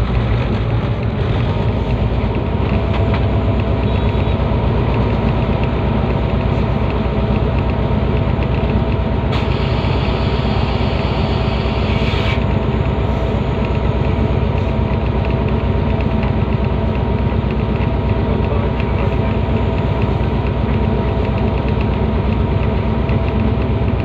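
Diesel locomotive engine running steadily as the train moves along the track. About nine seconds in, a hiss starts suddenly and cuts off about three seconds later.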